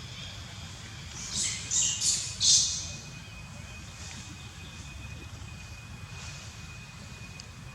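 Four short, high-pitched animal calls in quick succession about a second and a half in, over a steady low background rumble. A faint, thin, steady high tone continues after them.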